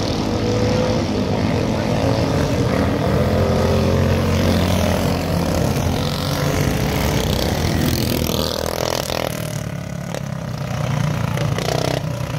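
Several 390cc single-cylinder four-stroke dirt kart engines running at high revs as the karts race round the oval. One kart passes close by in the first half, and the sound eases a little after that.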